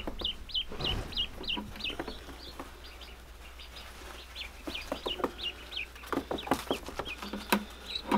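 Newly hatched Indian Runner ducklings peeping: a run of short, high calls, each with a quick downward hook, about three a second, pausing briefly midway. A cluster of sharp knocks and clicks comes in the second half.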